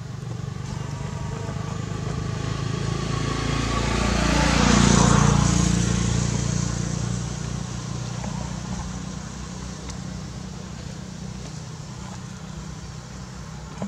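A motor vehicle passing by, its engine growing louder for about five seconds and then fading away as its pitch drops.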